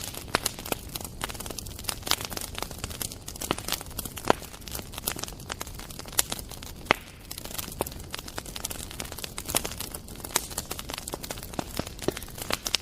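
Bonfire crackling, with irregular sharp pops and two louder pops about four and seven seconds in.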